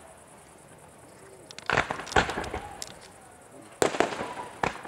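Fireworks bursting overhead. After a quiet start, two loud bangs come about two seconds in, with smaller pops and crackles between them, and two more loud bangs come near the end.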